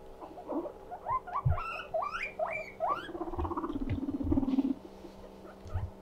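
Guinea pig wheeking: a quick run of about six short squeals, each rising in pitch, followed by a lower, steadier call lasting a second or so, with soft thumps of movement on the fleece blanket.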